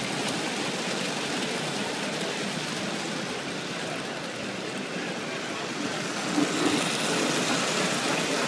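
American Flyer S gauge model trains rolling along the track, a steady rumble of wheels on rail. It grows louder about six seconds in, with a couple of clicks, as locomotives pass close by.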